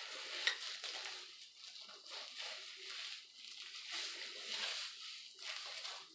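Disposable plastic gloves rustling and squishing as bleach is worked through wet hair, in uneven strokes, with a sharp click about half a second in.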